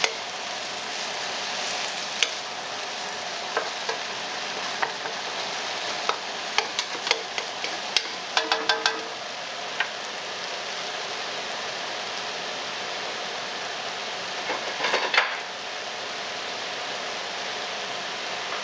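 Cabbage and carrots frying in a nonstick pan, a steady sizzling hiss. A wooden spatula stirs and clatters against the pan, with scattered taps and a cluster of knocks in the first half and another burst of clatter near the end.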